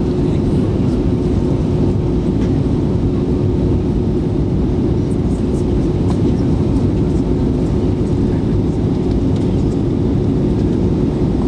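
Steady engine and airflow noise inside a jet airliner's passenger cabin in flight: an even, deep rumble with a steady low hum running through it.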